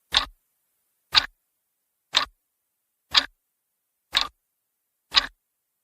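Clock ticking, one sharp tick a second, six ticks with dead silence between them, used as a sound effect for time passing.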